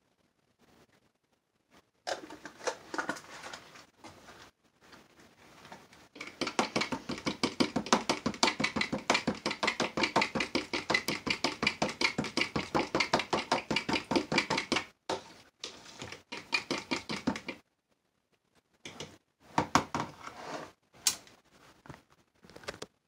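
A spoon stirring quickly in a plastic measuring jug of liquid soap, a fast, even run of scraping taps, about five a second, lasting several seconds through the middle. Scattered clicks and knocks of the jug and spoon being handled come before and after.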